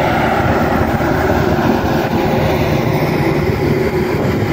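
New Holland TS6.120 tractor's four-cylinder turbocharged, intercooled diesel running steadily under load while pulling a heavy 26-disc harrow, its discs working through dry soil.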